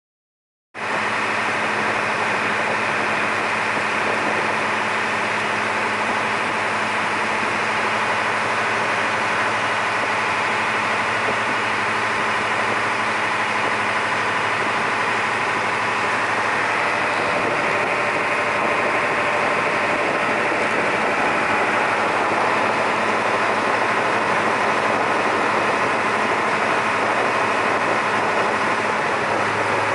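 Small ferry's engine running steadily, heard on board as a low, even hum under a steady rushing noise. It cuts in abruptly about a second in and holds unchanged throughout.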